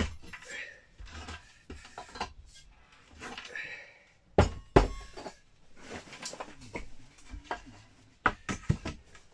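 Wooden boards being handled and worked during wall cladding: scraping and knocking of timber, two loud sharp knocks about halfway through, and a quick run of sharp knocks near the end.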